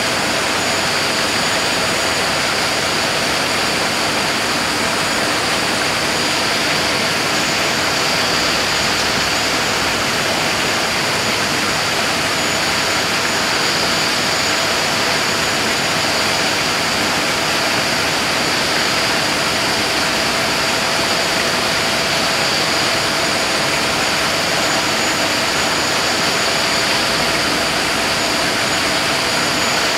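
Steady, loud rushing noise with a few faint steady hums running through it, unchanging throughout.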